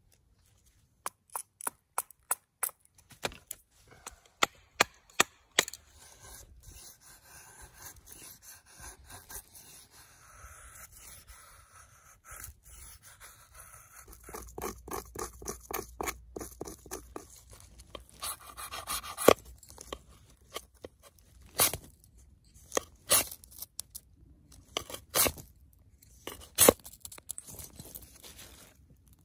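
A large bushcraft knife working dry wood for fire-lighting. A run of sharp knocks comes first, then steady rasping strokes as thin curls are shaved off a stick into a feather stick, and a few loud single cracks near the end.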